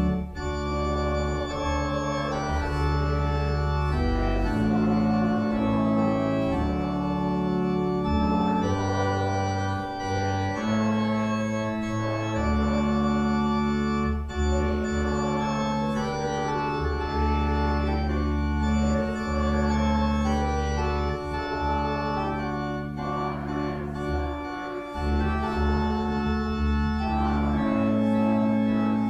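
Church organ playing full sustained chords over held bass notes, the chords changing every second or so.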